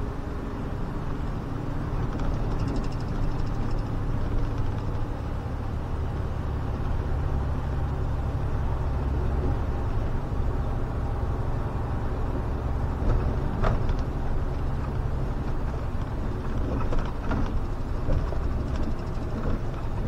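SOR CN10.5 bus driving along, a steady low engine and road drone that grows a little louder about two seconds in, with a few sharp knocks or rattles in the second half.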